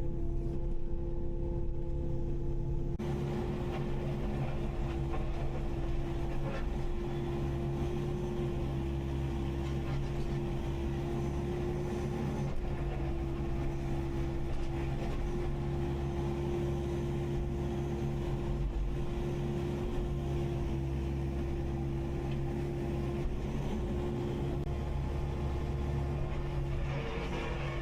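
Kubota KX080-5 excavator's diesel engine running at a steady speed, a constant drone. About three seconds in, the sound becomes busier with added noise over the drone.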